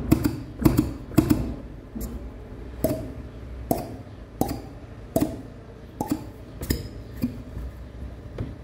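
Metallic clinks and knocks from hand work on a Peugeot 103 moped engine, about one every three-quarters of a second, each with a short ring.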